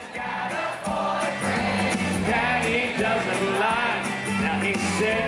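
Live country band playing, with guitars, drums and singing heard from within the concert crowd; the music fades up over the first second after a cut.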